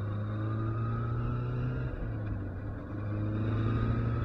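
1981 Kawasaki KZ550's air-cooled inline-four engine running under way, a steady low drone with a faint whine rising slowly above it. The engine note drops out briefly a little past halfway, then comes back louder.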